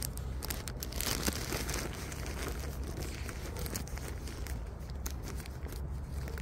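Dry fallen leaves crackling and crunching underfoot in irregular clusters of small crackles, thickest about a second in and again near the end.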